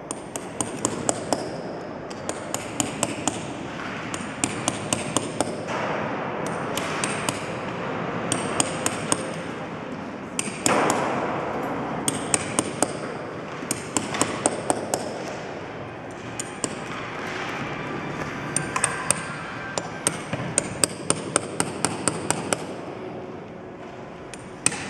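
Small hammer tapping a thin metal chisel against a stone mosaic floor: quick runs of light, ringing metallic taps, several a second, broken by short pauses.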